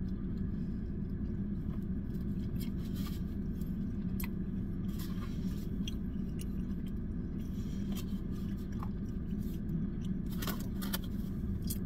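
A person chewing a mouthful of cheeseburger, with scattered small mouth clicks, over a steady low hum in the car cabin.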